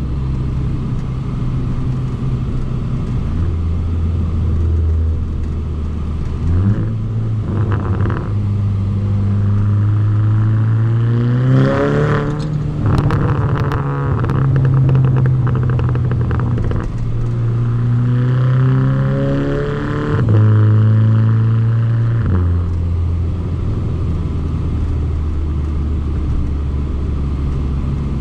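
Volkswagen Mk6 Golf GTI's turbocharged 2.0-litre four-cylinder heard through a microphone at the exhaust while driving: the engine note climbs in pitch under acceleration from about seven seconds in, drops at a gear change around twelve seconds, climbs again and drops at another shift around twenty seconds, then holds steady.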